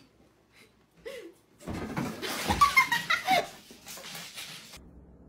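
A person laughing and giggling for a few seconds, starting about two seconds in.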